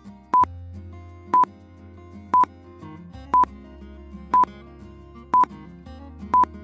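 Short, loud electronic beeps of a single pitch, one each second, seven in all, over soft background music.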